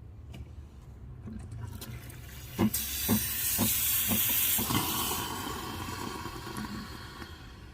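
Breville Barista Pro steam wand being purged: a burst of hissing steam starts about two and a half seconds in and slowly tails off, with five soft knocks about twice a second as it begins.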